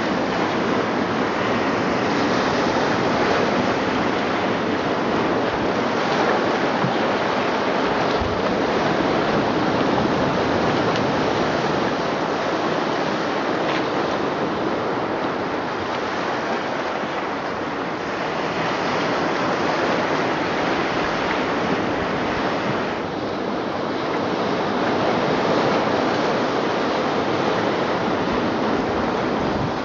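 Recorded ocean surf played through loudspeakers built into a sculpture: a steady wash of waves that swells and ebbs slowly.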